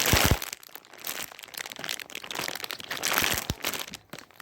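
Plastic squishy packaging crinkling as it is handled and opened, with two louder bursts of crinkling, one right at the start and one about three seconds in.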